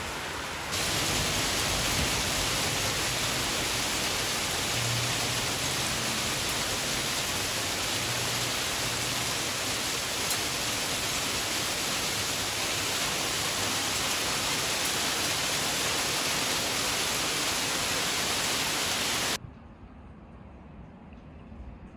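Heavy rain falling as a steady, loud, even hiss that gets louder about a second in. It cuts off suddenly near the end, leaving much quieter outdoor background sound.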